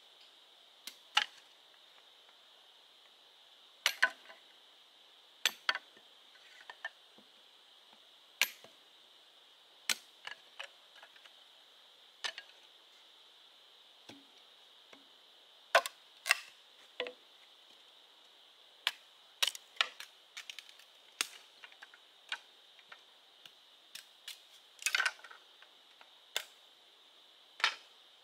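Irregular sharp knocks and cracks, roughly one every second or two, from hand tool work on bamboo, over a steady high-pitched drone of forest insects.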